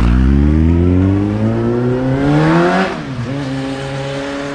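Honda CBF 600S inline-four through an aftermarket Mivv carbon silencer, accelerating hard away from a standstill. The engine note rises through first gear, drops at an upshift about three seconds in, then climbs again as the bike pulls away and grows fainter.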